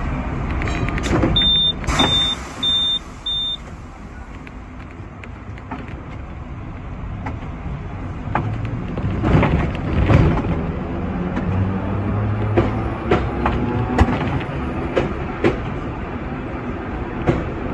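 Hong Kong double-decker tram, a sixth-generation teak-bodied car, heard from inside as it runs along the track: a steady rumble broken by scattered sharp clunks and knocks from the wheels on the rails. The rumble grows louder from about halfway. Four short high beeps sound about a second in.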